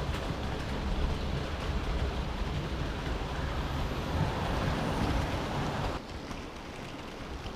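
Model railway train running on the layout: a steady rumble of wheels on rail carried through the baseboard, with the whirring motor of a green steam-outline locomotive model growing louder as it passes close by about four seconds in. Near the end the level drops suddenly to a quieter rolling sound.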